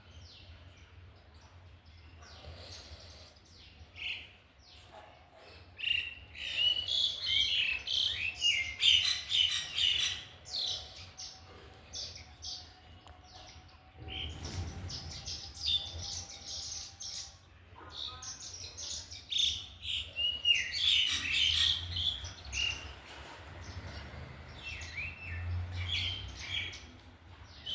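Small birds chirping and twittering in quick, overlapping bursts. The chirping is busiest about a quarter of the way in and again past two-thirds, with sparser calls between.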